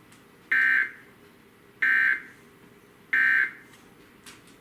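Emergency Alert System end-of-message (EOM) tones: three short, identical bursts of SAME digital data, about 1.3 seconds apart, signalling the end of the alert.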